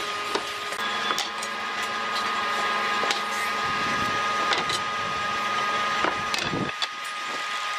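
A woodworking power tool running steadily with a constant whine, while wood knocks sharply several times as it is handled.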